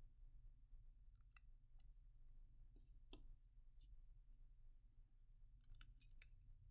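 Near silence over a faint low hum, broken by a few small, sharp clicks: one about a second in, another near the middle, and a quick cluster near the end.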